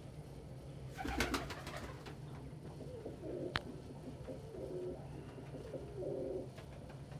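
Domestic pigeon cooing, a run of low repeated coos in the second half. About a second in there is a brief burst of rapid clicks, and a single sharp click comes midway.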